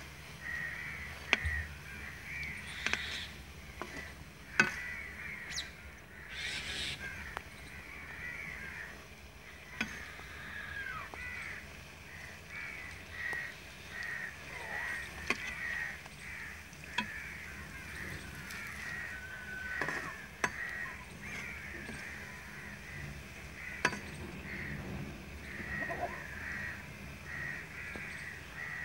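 Pakoras deep-frying in hot oil in an iron karahi. A slotted metal spoon clinks against the pan now and then, and birds call over and over throughout.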